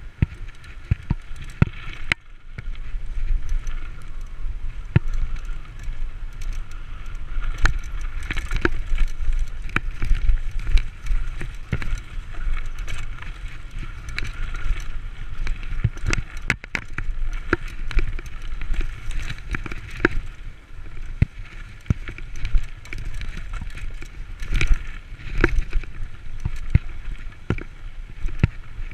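Mountain bike ridden fast downhill on a dirt trail: tyres rolling and rumbling over the ground, with frequent sharp knocks and rattles from the bike as it bounces over bumps.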